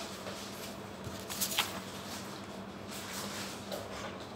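Quiet kitchen room tone with a steady low hum, broken by one brief sharp click about a second and a half in.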